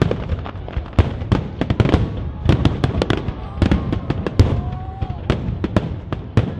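Aerial fireworks display: shells bursting in quick, irregular succession, many sharp cracks overlapping with deeper booms.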